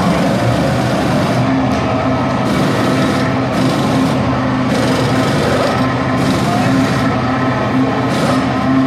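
A Ferrari Formula 1 car's engine running at a steady idle while the car stands for a pit stop. Short bursts of higher hissing whirr come and go over it every second or so, fitting pneumatic wheel guns at work on the wheels.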